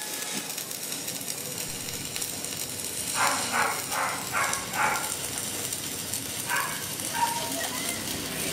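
Stick-welding arc on a steel frame, crackling and hissing steadily. About three to five seconds in, a run of short pitched calls sounds over it, louder than the arc.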